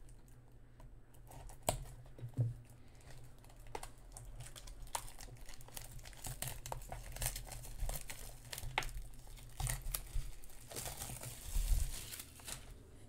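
Plastic shrink-wrap being torn and peeled off a sealed trading-card hobby box: steady crinkling with scattered sharp crackles, thickest near the end.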